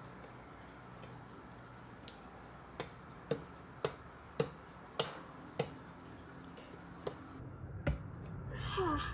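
Meat cleaver chopping into a whole pig carcass on a wooden board: a run of sharp chops about two a second, then two more spaced-out chops. Near the end comes a short squeaky sliding sound.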